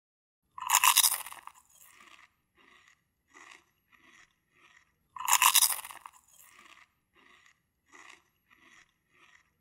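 Pepper mill grinding black pepper. There are two loud crunching turns, one about a second in and one about five seconds in. Each is followed by a run of fainter, evenly spaced crunches.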